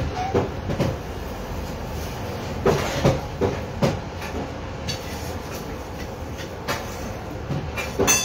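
A hand-pumped forge bellows, worked by its overhead lever to blow air into a coal fire while iron heats. It gives a steady low rush of air with repeated knocks and clunks from the lever and bellows.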